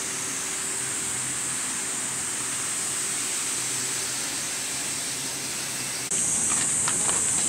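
Steady hiss of a park fountain's splashing water. About six seconds in it gets suddenly louder, with a few faint clicks.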